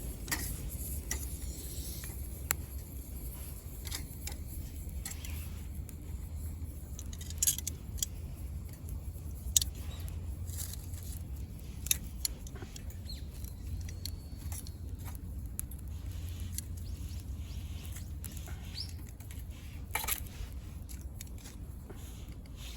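Wood burning in a small camping wood stove: irregular crackling, with a few sharp louder pops, over a steady low rumble.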